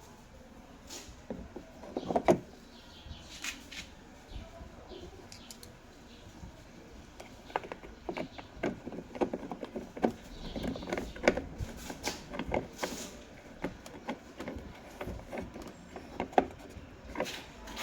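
Irregular clicks and knocks of hard plastic being handled and fitted, as the repaired interior car door handle cover is put back in place.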